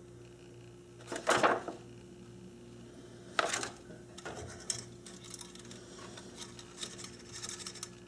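Small metal clinks and clatters of hand tools and wire connectors against a rotary phone dial's brass screw terminals and metal frame: two louder clatters in the first few seconds, then lighter ticks and clicks.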